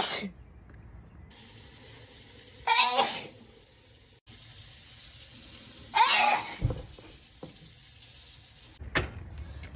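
A person sneezing: two loud sneezes about three seconds apart, each a short voiced burst, with a briefer, weaker burst near the end.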